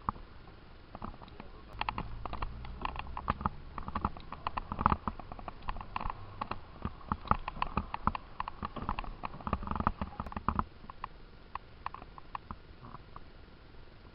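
A rapid, irregular series of small knocks and clicks over a low rumble, which stop fairly abruptly about ten and a half seconds in and are followed by a few scattered clicks.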